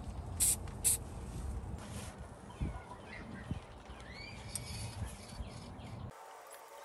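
Two short hissing spray bursts from an aerosol can, about half a second apart, followed by birds chirping over a low outdoor rumble.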